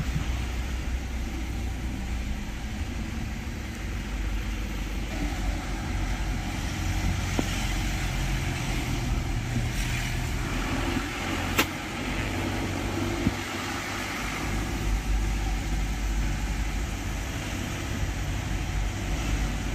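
Car engine and road noise from inside the cabin of a moving vehicle, a steady low rumble. A single sharp click sounds a little past the middle.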